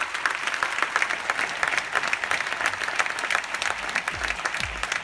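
Audience applauding, dense and steady. Deep low thuds, about two a second, come in near the end.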